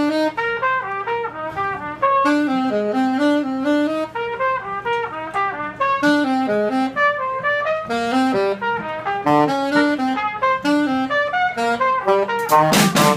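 Live small-group jazz: a trumpet and a saxophone play a quick melody line together in a run of short notes. Sharp drum and cymbal hits come in near the end.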